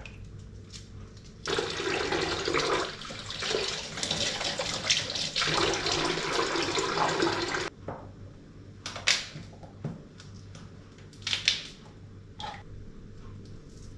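Kitchen tap running into a stainless steel sink for about six seconds while hands are rinsed, then shut off abruptly. After that come a few sharp taps of a knife on a wooden cutting board.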